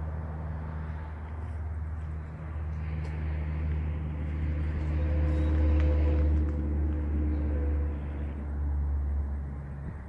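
A motor vehicle's engine, a steady low rumble that swells about five to seven seconds in, with a faint hum on top, then eases off again.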